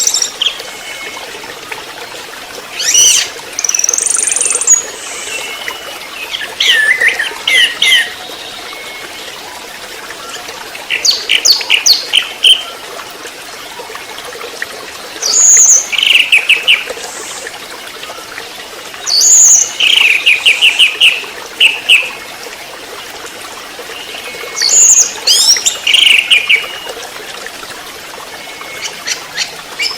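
Young orange-headed thrush (anis merah trotol) singing in short bursts of rapid, high chirping notes every few seconds, over a steady hiss like trickling water.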